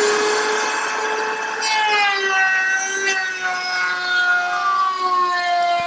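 Table-mounted router running at full speed with a steady whine while a strip of wood is fed past a quarter-inch ogee bit. From about two seconds in the bit bites into the wood, adding a cutting rasp, and the motor's pitch sinks slightly under the load.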